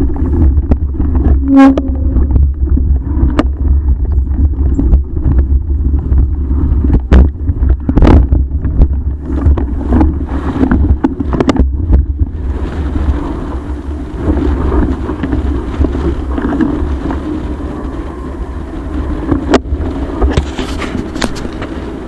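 Wind buffeting the microphone during a bike ride, a loud, steady low rumble, with scattered knocks and rattles; the rush gets hissier from about halfway through.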